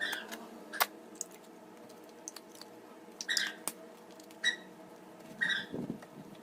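Slime being squeezed and mixed with oil by hand: wet squelches and sticky popping clicks, with a squelch about once a second in the second half.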